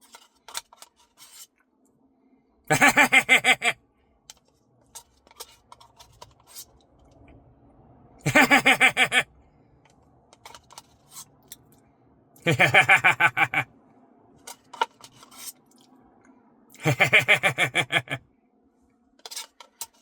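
A man's voice in four short, loud, rapidly pulsing bursts about every four seconds, like quick nonsense chants or laughs, with faint clicks and scrapes between them.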